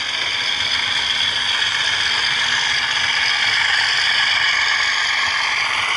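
Model diesel locomotive running along the layout's track: a steady whir and rattle of its motor and wheels on the rails.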